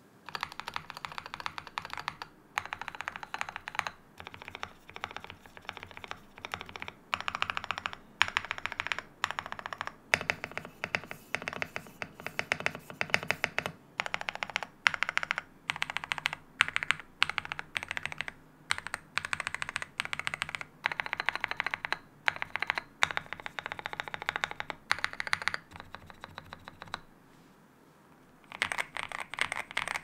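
Typing on a GMK67 custom mechanical keyboard built with polyfill, a tape mod and lubed stabilizers: dense runs of keystrokes with brief pauses between bursts, and a longer pause near the end.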